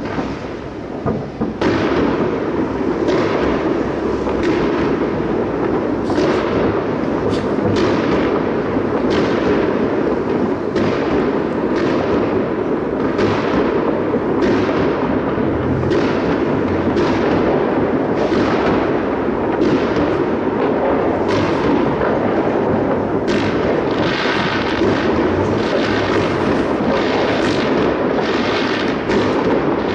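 Fireworks salute fired from salute launcher vehicles: a steady barrage of shells launching and bursting, a sharp bang about once a second over a continuous low rumble, starting in earnest about a second and a half in.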